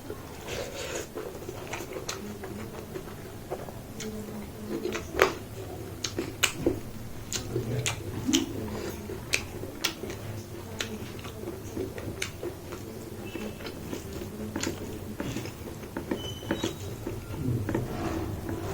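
A person chewing and eating close to the microphone, with irregular wet mouth clicks and smacks.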